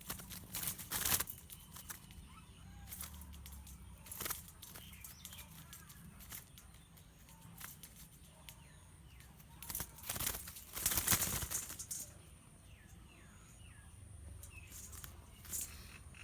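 A bird flapping its wings in several short flurries, the longest between about 10 and 11.5 seconds in, with faint chirps in between.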